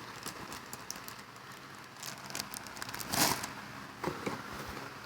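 Packaging being handled: light crinkling and small clicks, with one louder rustle about three seconds in.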